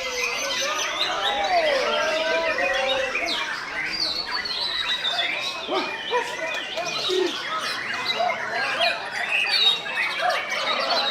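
Many caged songbirds singing at once: a dense, overlapping chorus of chirps, trills and gliding whistles that never stops.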